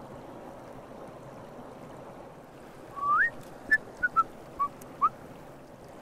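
Small forest stream rushing steadily over stones. About halfway through come a handful of short whistled notes: one rising note, then five brief ones.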